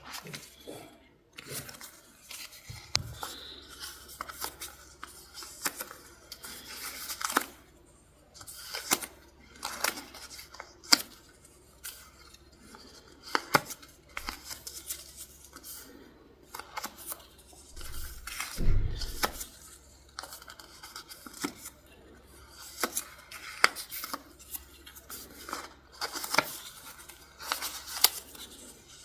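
Scissors snipping through paper and stickers, irregular crisp cuts mixed with paper rustling and tearing.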